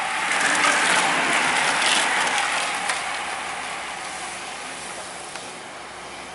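A bunch of road racing bicycles passing close by: tyre hiss and the ticking of coasting freewheel hubs swell in the first two seconds, then fade as the riders move away.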